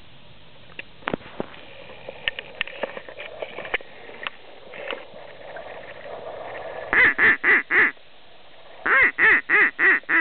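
Loud duck quacks: a run of four evenly spaced quacks, then after a short gap a run of five, after a scatter of light clicks and ticks in the first few seconds.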